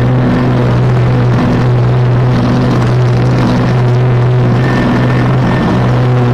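Small gasoline engine of lawn-care equipment running steadily under throttle, with a strong even hum and no break.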